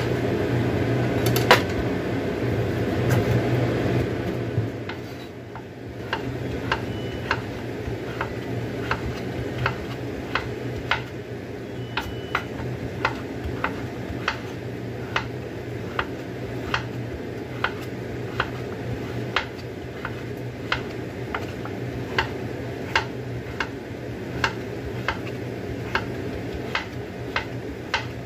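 Chef's knife chopping firm vegetable on a wooden cutting board, a sharp chop about every 0.7 s from about six seconds in. Before that, a steady scraping as the knife pares a piece in the hand.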